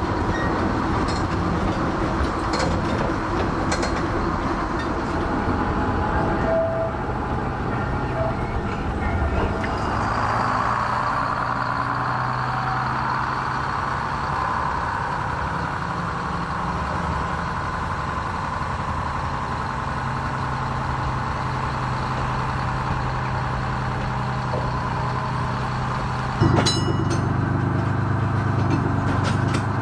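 Old electric vicinal tram running on its track: a steady motor hum and wheel-on-rail rumble with scattered clicks. About 26 seconds in, the sound cuts suddenly to a louder steady hum.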